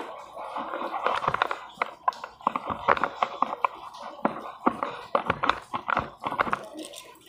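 Irregular knocks, taps and scrapes of hand work on a scooter: tools and plastic body parts being handled and bumped.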